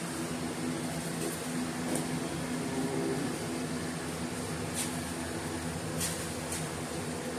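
Steady low mechanical hum of a fan or air-handling unit in a small room, with a few faint clicks as small carburetor parts are handled on the bench.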